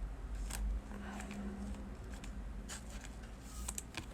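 Baseball cards being handled and slid into plastic sleeves: light, scattered rustles and clicks.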